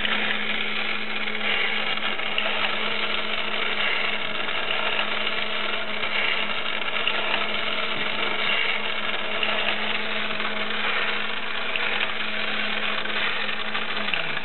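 1950s Japanese battery-operated bubble-blowing elephant tin toy running: its small electric motor and gears whir steadily as the trunk dips and lifts. Near the end the motor's pitch drops as it slows.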